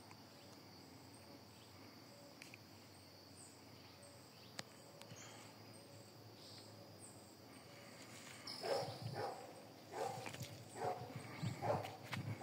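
Insects chirring steadily. Then, from about two-thirds of the way in, a run of irregular crunching steps on dry leaves and sandy ground.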